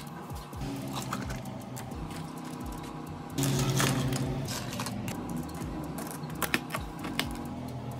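Ice cubes dropping and clinking into plastic cups, a string of sharp clicks, over a steady machine hum that gets louder about three and a half seconds in.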